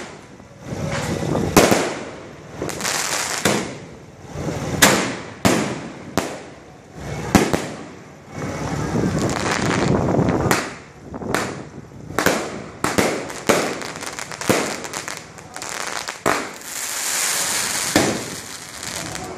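Fireworks going off: many sharp bangs at irregular intervals, some followed by crackling and hissing that swell and fade over about a second.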